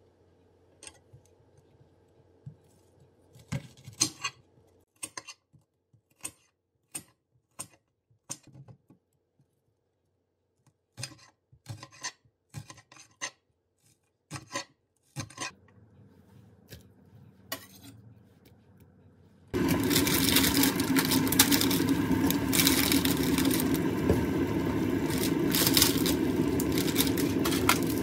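A chef's knife chopping green onion on a cutting board: separate sharp knocks in uneven runs, with short pauses. About two-thirds of the way in, a loud steady hiss starts suddenly and takes over.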